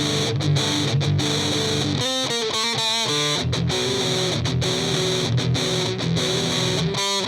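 Heavily distorted electric guitar, a Les Paul Custom copy with P90 pickups through a Joyo Extreme Metal pedal into a Marshall Origin 50 amp, playing a metal riff: low chugging chords with short stops, then quick single-note runs about two seconds in and again near the end.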